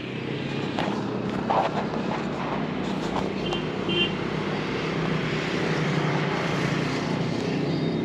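A vehicle engine running steadily at an even pitch, with road noise around it and a few faint clicks.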